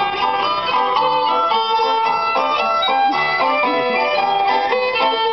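Instrumental music with a quick, busy melody of short notes.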